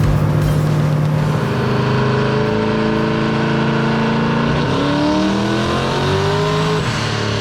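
Twin-turbo LSX V8 of a 1969 Camaro making a full-throttle pull on a chassis dyno: the engine note climbs in pitch, drops abruptly about four and a half seconds in as the automatic transmission shifts up, climbs again, then falls away near the end as the pull ends.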